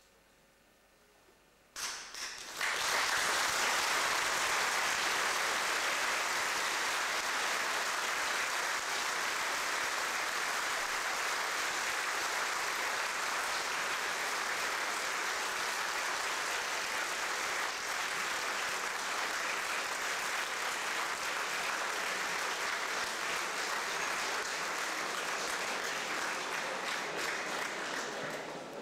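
Audience applauding. After about two seconds of near silence the applause breaks out suddenly, holds steady, and starts to fade near the end.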